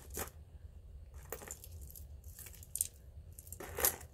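Pieces of metal and bead jewelry clinking against each other as they are lifted out of a pile by hand: a handful of light, separate clinks spread across a few seconds.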